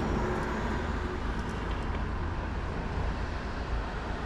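Steady low outdoor rumble, like distant road traffic, with no distinct event standing out.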